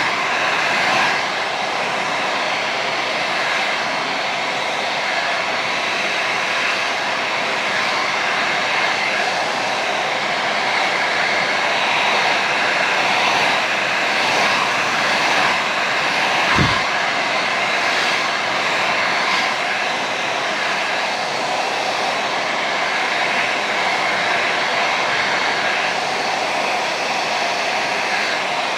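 Handheld hair dryer running steadily, a constant blowing rush with a faint whine, with one brief low bump a little past halfway.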